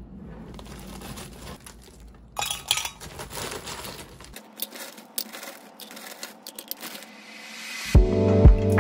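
Ice cubes tipped from a plastic bag into a glass mug, clattering in a burst and then clinking one by one against the glass. Music with a steady beat comes in near the end.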